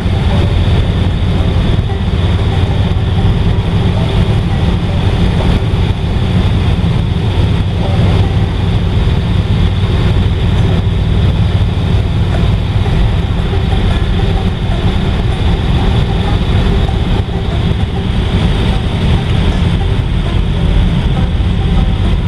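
A 1955 Ford's 292 Y-block V8 and tyres at a steady cruise, a low, even rumble with road noise and no rise or fall. The exhaust runs quiet, its leak freshly repaired.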